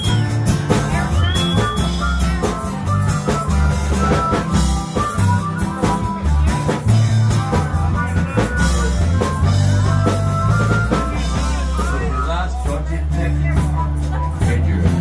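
Live band music: acoustic guitars and a drum kit with a harmonica, and a woman singing.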